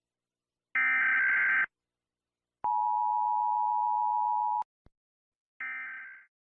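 Emergency Alert System tones. A roughly one-second screeching burst of SAME digital header data comes first, followed by about two seconds of the steady two-tone attention signal. A faint click follows, then another header burst that fades away.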